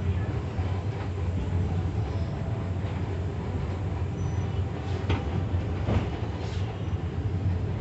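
Kintetsu Nishi-Shigi Cable funicular car running downhill on its track, a steady low rumble heard from inside the car, with a couple of sharp clicks about five and six seconds in.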